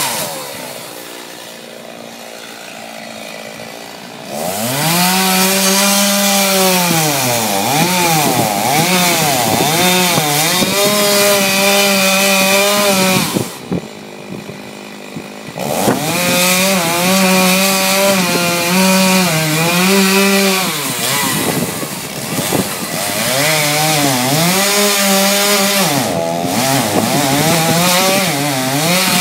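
Stihl chainsaw cutting wood, its engine revving high, sagging under load and picking up again over and over, and dropping back to idle twice.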